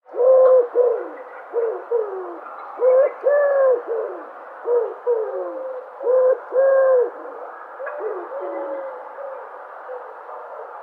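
Dove cooing: a string of short, low coos in loose groups of two or three, several dropping in pitch at the end, over faint steady background noise.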